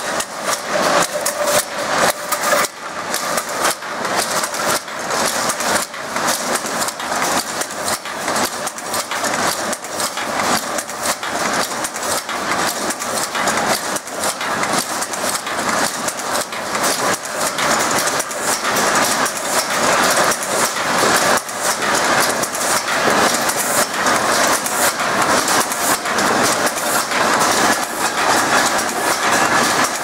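Crimped wire mesh weaving machine running, a loud, continuous, rapid mechanical clatter as its loom beats steel wire into mesh.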